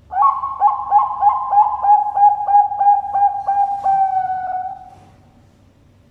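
Zebra dove (Bangkok perkutut) cooing: a rapid string of about a dozen short coos, roughly three a second, running into one long drawn-out final coo.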